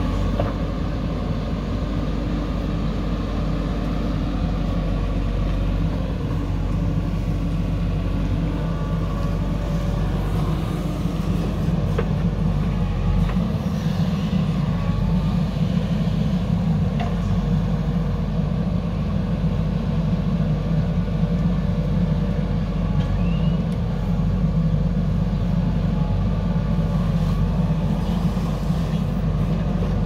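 JCB backhoe loader's diesel engine running under load as the backhoe digs and swings soil, a steady low engine note that gets somewhat louder about twelve seconds in. A few faint knocks of bucket and soil come through.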